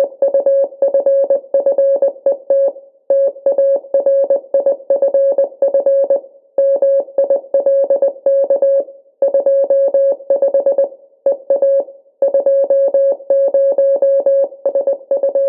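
One electronic keyboard note of fixed pitch, struck rapidly over and over at several notes a second. It comes in runs of two to three seconds, broken by short pauses.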